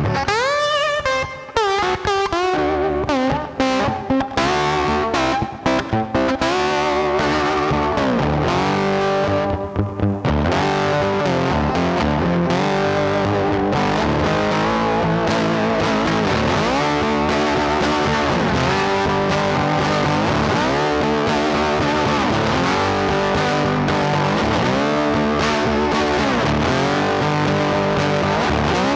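Background music led by a distorted electric guitar with effects, with sweeping pitch bends over a steady beat.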